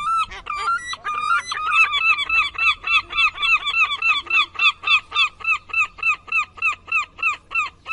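An animal calling in a fast, even series of short arched honk-like notes, about four a second, after a few more irregular calls at the start.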